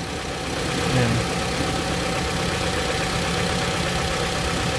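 2008 Mitsubishi Lancer EX four-cylinder engine idling steadily, heard up close under the open hood. The owner has noticed the engine shaking as if about to die at stoplights, which he has been told could be a busted spark plug or ignition coil.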